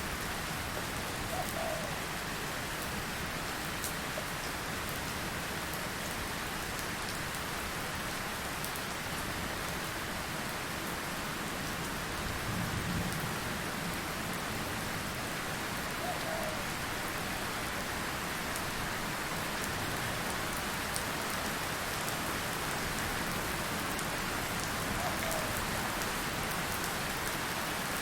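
Steady rain falling on surfaces, an even hiss without a break, with a brief low rumble near the middle.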